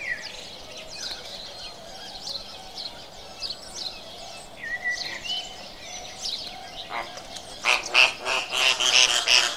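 A flock of flamingos calling: scattered short calls, then a louder, rapid run of calls from about eight seconds in.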